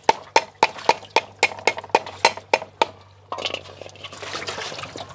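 Fingerroot (ngải bún) rhizomes being pounded to bruise them for soup broth: quick, evenly spaced knocks with a short ring, about four a second, stopping just under three seconds in. A softer, noisier sound follows.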